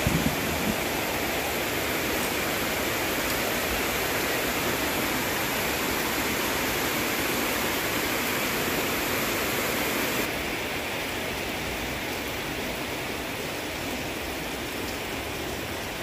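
Steady heavy rain, an even hiss with no breaks.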